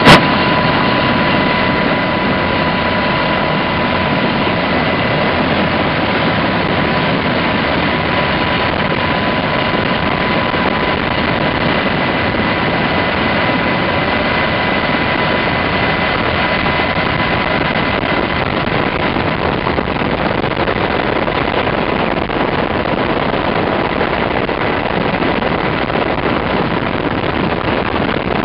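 UH-60 Black Hawk helicopter heard from inside its cabin while hovering low: a loud, steady rush of rotor and turbine noise with a high whine through it.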